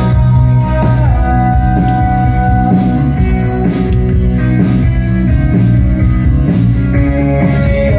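Rock song with guitar played loud through home tower party speakers, heavy in the bass.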